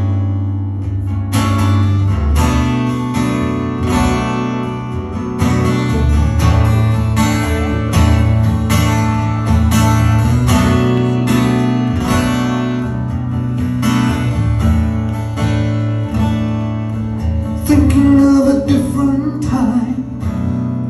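Acoustic guitar strummed in a steady rhythm, playing sustained chords as an instrumental passage between sung verses.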